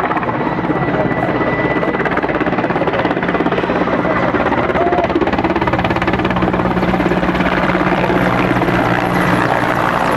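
Mil Mi-17 helicopter flying low and passing close overhead, loud and steady: the rapid chop of its main rotor blades over the running of its twin turboshaft engines, with a thin high whine coming in about halfway through.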